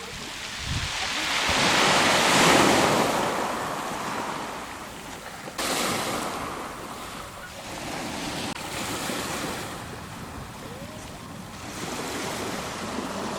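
Rushing noise, like surf or wind on the microphone, that swells to a peak about two seconds in and then eases off. It breaks off abruptly a few times.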